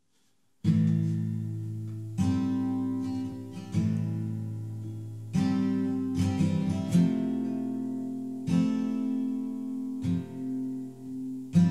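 Background music of acoustic guitar strumming chords, starting about half a second in. Each chord is struck and rings out, fading before the next one comes in.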